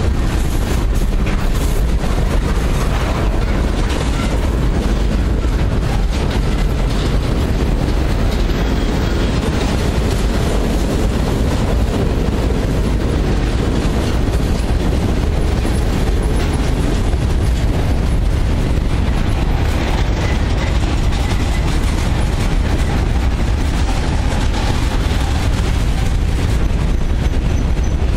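Freight train cars rolling past at close range: a steady, loud rumble of steel wheels on the rails.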